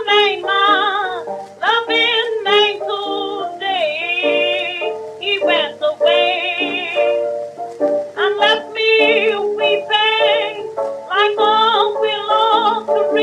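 Early 1920s acoustic-era blues record on a 78 rpm shellac disc: a woman singing a slow blues with a strong vibrato over piano accompaniment, with thin, narrow period sound and no high treble.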